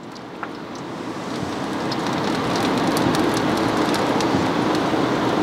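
Sizzling and crackling from the open charcoal smoker with the hot chicken thighs pulled out on their mesh mat. It grows louder over the first two seconds, then holds steady, with many small pops.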